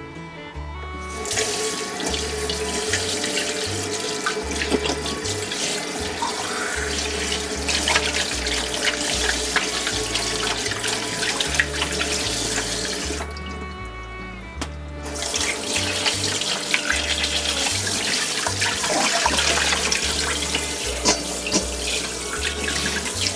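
Kitchen tap running into a glass bowl in a sink while hands rub and rinse a whole raw chicken, the water splashing; the sound breaks off briefly about halfway and then resumes. Background music plays underneath.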